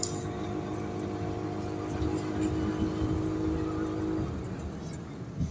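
Auto-rickshaw engine running as it drives along, heard from inside the open cabin, with road noise and a steady hum that drops away about four seconds in.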